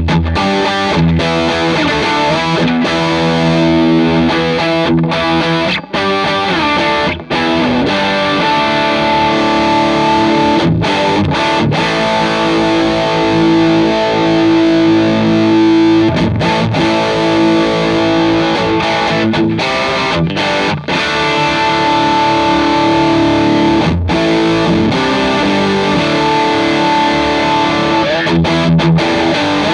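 Fender Telecaster played through a D-Sound Fisherman British-style overdrive pedal, a touch of delay and a Vox AC30 amp: overdriven electric guitar playing chords and lines, with a few brief breaks between phrases.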